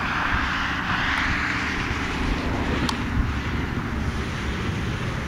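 Steady low droning hum of an aircraft flying overhead, with a hiss around it.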